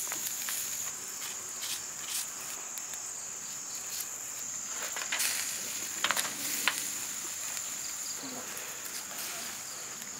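Steady, high-pitched trilling of crickets and other insects, with a few sharp clicks and knocks about halfway through as the whole goat carcass is lifted and turned on the wire grill.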